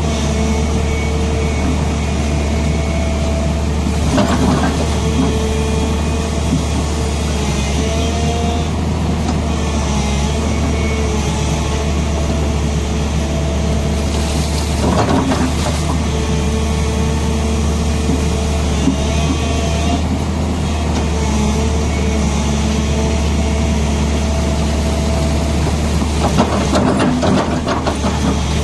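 Tata Hitachi excavator's diesel engine running steadily, with a few brief louder noises about four, fifteen and twenty-seven seconds in.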